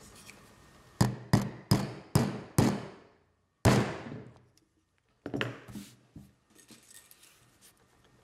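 Rotary leather punch pliers snapping through leather: five sharp clicks in quick succession, about 0.4 s apart, then a louder one after a short pause, and two more a little later.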